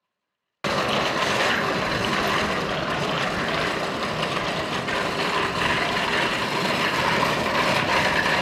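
Steady rushing noise of wind and road while cycling. It cuts in abruptly just over half a second in and holds even, with no voices.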